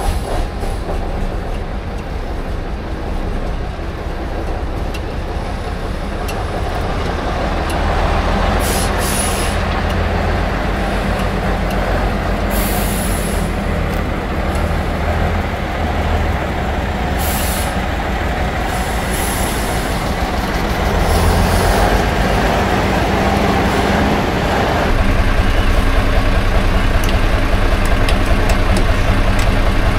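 Diesel engine of a 1980 Škoda RTO fire truck running as the truck drives, growing louder over the stretch and stepping up again about 25 seconds in. Several short hisses of air come in the middle, typical of the truck's air brakes.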